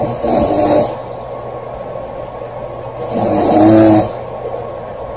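A girl snoring loudly: two snores, each just under a second long and about three seconds apart, the second the louder, with quieter breathing between them.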